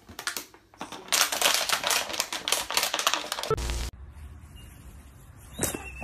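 Rapid, irregular clicking and tapping for about four seconds, like keys being struck, then it cuts off suddenly into a quieter hum with a single click near the end.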